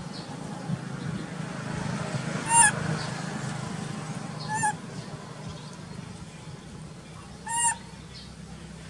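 Baby macaque giving three short, high cries, each rising and falling in pitch, a couple of seconds apart, the first the loudest: infant distress cries, which the uploader takes for crying for its mother. A steady low hum lies underneath.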